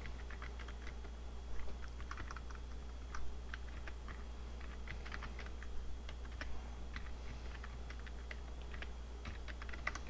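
Typing on a computer keyboard: irregular key clicks at a typing pace, over a low steady hum.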